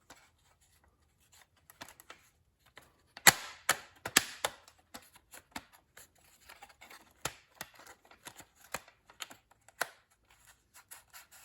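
Plastic console trim around a car's gear shifter being handled and pressed into place: irregular clicks, taps and short scrapes, with a cluster of louder sharp clicks about three to four seconds in.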